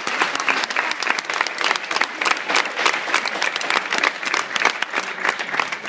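A crowd applauding, a dense steady clapping of many hands.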